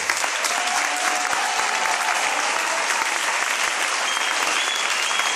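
Audience applauding, dense and steady, just as the music stops.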